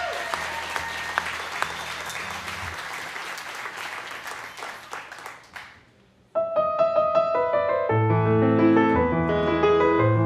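Audience applause dying away over several seconds, then after a brief hush a piano starts playing about six seconds in, with a bass line joining a couple of seconds later.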